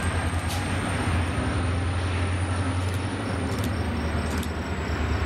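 MBTA F40PH-2C diesel locomotive's EMD 16-cylinder two-stroke engine running with a steady low drone as it pushes a commuter train away along the track, over rail noise with a few sharp clicks.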